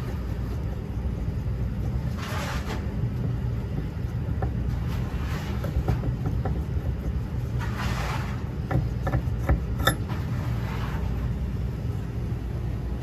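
An MSA Ultima X oxygen sensor being unscrewed by hand from its transmitter: soft rubbing scrapes of the threaded stainless-steel housing, then a cluster of small clicks about nine to ten seconds in as the sensor module comes free. A steady low machinery rumble runs underneath.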